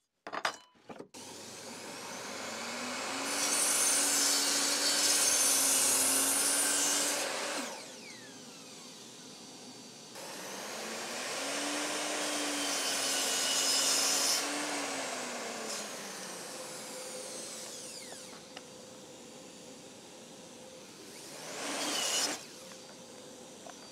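Evolution sliding mitre saw making two cuts through pine board. Each time the motor spins up with a rising whine, the blade runs through the wood with a loud hiss for several seconds, then the motor winds down with a falling tone. A short burst of noise comes near the end.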